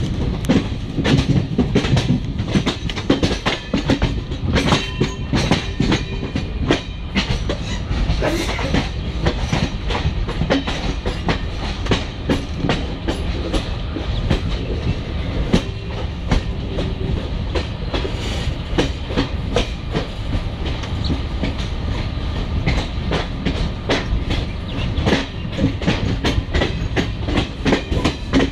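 A passenger train rolling, heard from on board. Its wheels clatter over rail joints and yard points in a dense, irregular run of clicks over a steady rumble.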